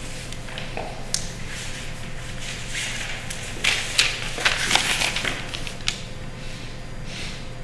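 A woman crying quietly: sniffles and shaky breaths in short noisy rushes, thickest in the middle, over a steady low electrical hum.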